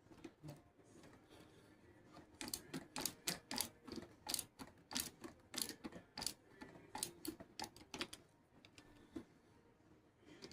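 Sharp metallic clicks at an irregular pace, about two or three a second, from about two seconds in until about eight seconds in, as a screwdriver drives screws by hand into a pump housing.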